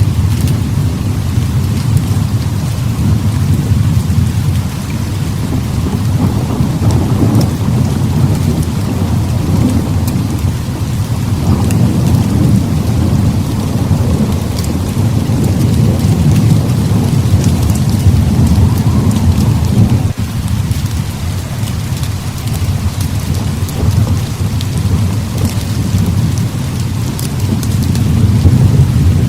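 Heavy rain pouring steadily, with a low rolling rumble of thunder that swells and fades throughout and dips briefly about twenty seconds in.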